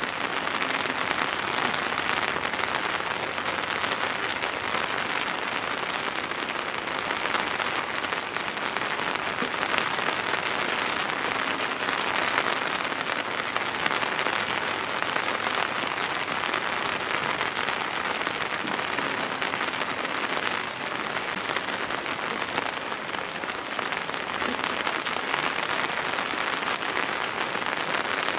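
Heavy rain falling steadily, a dense even hiss.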